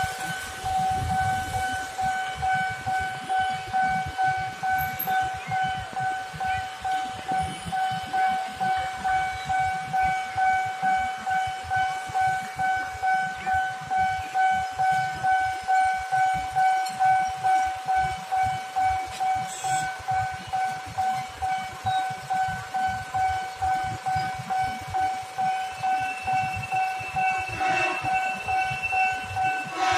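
Railway level-crossing warning alarm sounding while the barriers are down for an approaching KRL commuter train: a steady electronic tone that pulses evenly, about twice a second. A second, higher tone joins in near the end.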